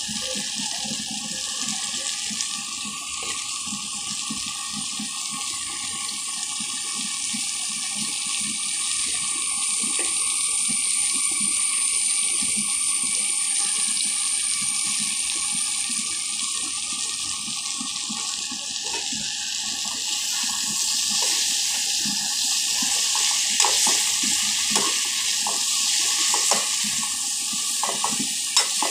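Vegetables sizzling in oil in an aluminium kadai, a steady hiss. In the last several seconds a spoon clicks and scrapes against the pan as the vegetables are stirred.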